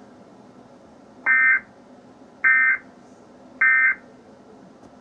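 Emergency Alert System end-of-message signal: three short bursts of buzzing digital data tones about a second apart, marking the close of the alert broadcast, over a faint steady hiss.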